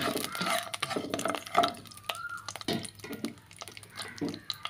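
Whole spices (cinnamon, cloves, star anise, peppercorns, bay leaf) frying in hot oil for a tempering, crackling and popping in a nonstick pan while a spatula stirs them.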